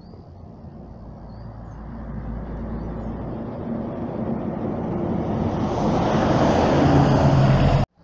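A motor vehicle approaching on the road, its engine and tyre noise growing steadily louder over several seconds, then cutting off suddenly just before the end.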